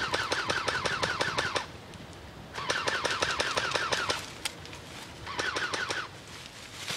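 Airsoft electric rifle firing on full auto: three bursts of rapid clicks with a gearbox whir, the last one shorter.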